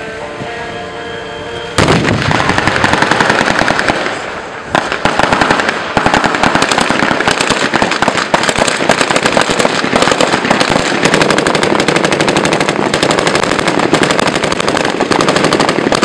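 Automatic gunfire from several weapons at once: dense, rapid volleys of shots that start suddenly about two seconds in and keep going, with a short lull around four seconds. Before the firing starts, vehicle engines are running.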